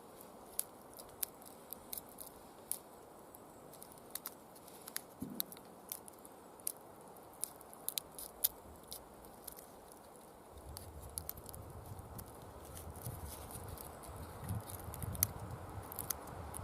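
Leatherman Free P4 multitool scissors snipping through thick birch bark: a run of sharp, irregular clicks, a few a second. A low rumble joins about ten seconds in.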